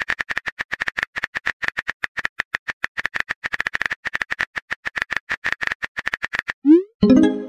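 Rapid, even keyboard tap clicks from a texting app's typing sound effect, about seven a second, as a message is typed. Near the end a short rising swoosh and a brief chime mark the message being sent.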